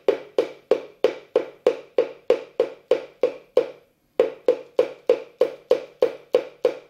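Hand tapping on a tabletop in a steady rhythm, about three sharp knocks a second, with a short break about four seconds in. The knocks are picked up by a piezo knock sensor that flashes the LED strip on each impact.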